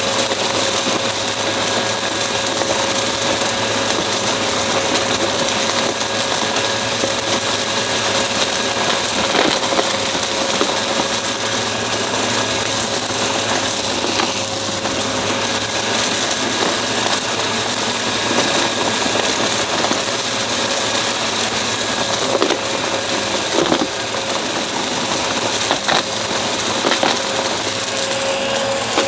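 Upright vacuum cleaner running steadily with a constant motor whine, picking up crunchy debris that crackles and clicks through the brushroll now and then.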